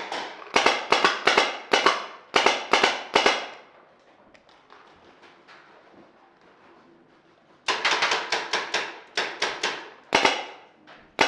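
Paintball marker firing in two rapid strings of sharp pops, about four shots a second, each string lasting about three seconds with a pause of several seconds between them.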